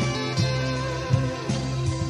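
Instrumental passage of a band song: guitars playing over bass and drums, with no singing.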